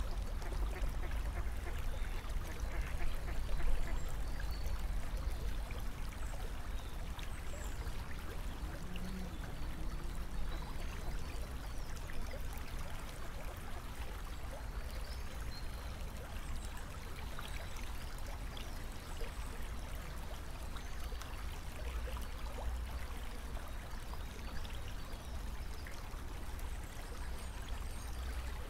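Steady trickling, rushing water, with a low rumble underneath.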